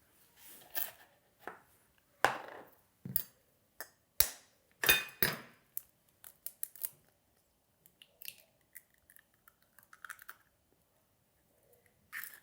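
Eggs being cracked and separated over kitchen bowls: a string of sharp knocks and clinks of shell and utensils against the bowl, the loudest in the first half, followed by lighter ticks and scrapes.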